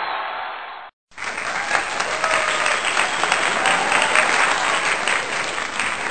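A crowd clapping and applauding, starting abruptly about a second in after a brief silence.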